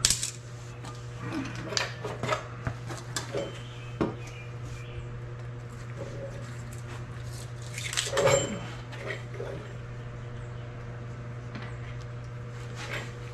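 Metal tools and strut hardware clinking and clanking as they are handled: a sharp clank at the start, a run of lighter clinks over the next few seconds, and a louder cluster of clanks about eight seconds in.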